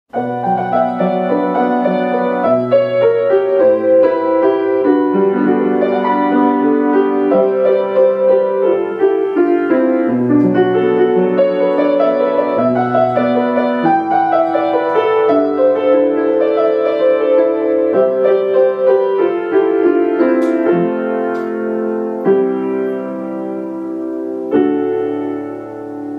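Piano music, a melody of struck notes over chords, growing softer near the end.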